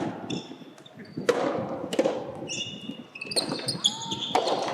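Soft tennis rally: sharp hits of rackets on the soft rubber ball and its bounces, about five in all, roughly a second apart, echoing in a large indoor hall.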